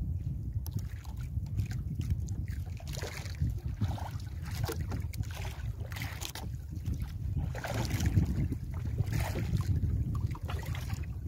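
Wet nylon gill net rustling and dripping as it is hauled and fish are worked free of the mesh, in short irregular bursts, over a steady low rumble of wind on the microphone.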